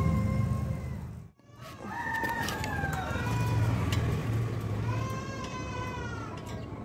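A cat meowing several times, drawn-out calls that rise and fall in pitch, over a low rumble.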